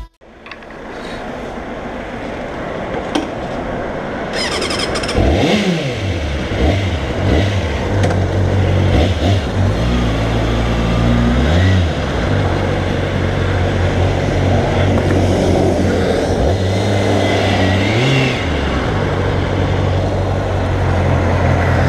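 Kawasaki ZXR400 inline-four motorcycle engine running at low speed as the bike is ridden. It fades in at the start and blips up and down in revs three times, about a third of the way in, halfway and near the end.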